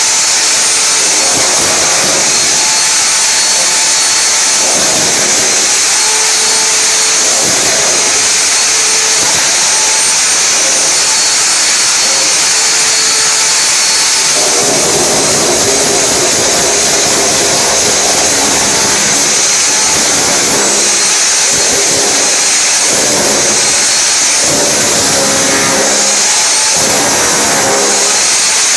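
Hammer drill with a chisel bit running continuously, chiselling a pipe groove into a gypsum-block wall. The hammering is loud and steady, and its note changes a few times as the bit works along the groove.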